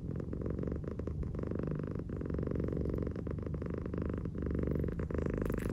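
A long-haired, flat-faced cat purring steadily close to the microphone. The purr comes in stretches of about a second each, with brief dips between them.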